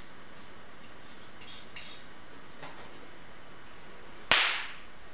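A metal palette knife clinking off-picture: a few faint light taps, then one sharp clink about four seconds in that rings briefly and fades.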